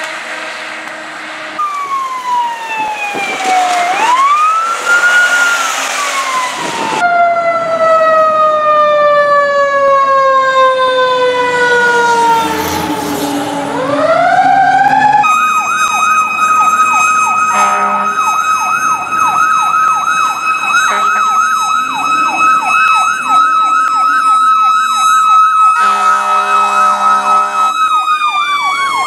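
Fire truck sirens on an emergency response. One siren wails in long, slow falling sweeps. About halfway it holds a steady high tone while a second siren yelps in a fast warble over it. Two bursts of air horn come in the second half, and the steady tone starts to fall again near the end.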